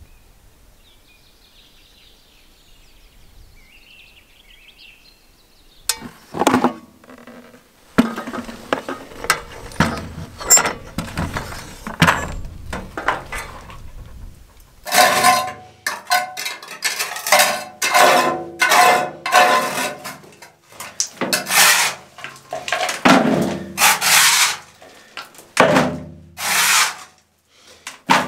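Trowel scraping on a concrete floor in repeated strokes, about one a second, as debris is scooped into a plastic bucket; it starts about halfway through. Before that there are scattered knocks and clatter, and near the start only faint high chirps.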